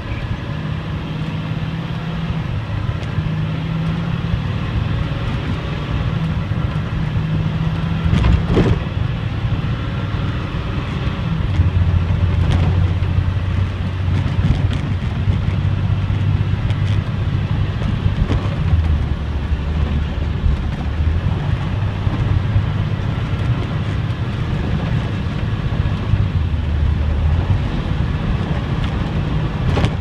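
2005 Blue Bird Vision school bus's diesel engine running under way, heard from the driver's seat with road noise and cab rattle. The engine note drops lower about a third of the way in, and a few brief knocks cut through.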